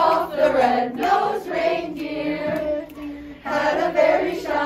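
Middle school choir of young voices singing a holiday song together. The singing breaks briefly about three and a half seconds in, then carries on.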